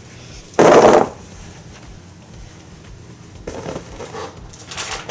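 Crinkly snack packaging tossed into a cardboard box: a short loud crackling rustle about half a second in, then fainter rustles and light knocks near the end.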